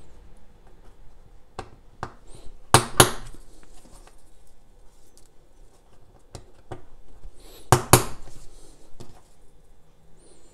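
Sharp clicks and knocks of copper coils being pressed onto a small 3D-printed plastic motor stator, with two bursts of louder snapping clicks about three seconds in and again near eight seconds, and lighter handling taps between.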